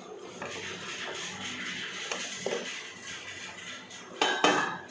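Pressure cooker letting out its last steam through the bare vent pipe with the weight removed, a steady hiss; near the end, a loud metal clatter as the steel lid is taken off.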